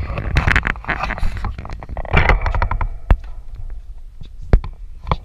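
Tennis ball struck by rackets during a rally: three sharp pops in the last two and a half seconds, the loudest about a second before the end. Earlier there is a loud rushing noise, mostly low-pitched.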